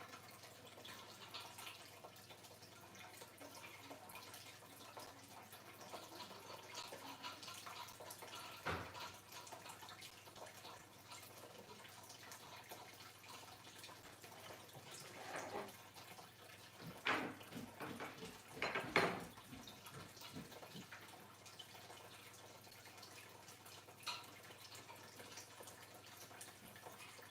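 Faint room noise with a few scattered short knocks and clicks, the loudest two a little past halfway: metal and wood parts of a desk and monitor mount being handled during assembly.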